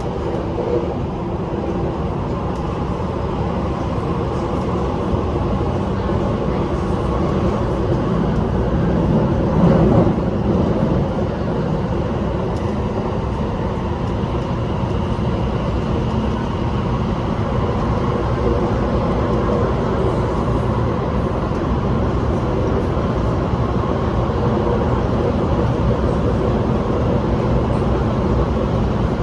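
Cabin noise of an MTR SP1900 electric train running between stations: a steady rumble of wheels on track with faint steady tones held over it, swelling louder for a moment about ten seconds in.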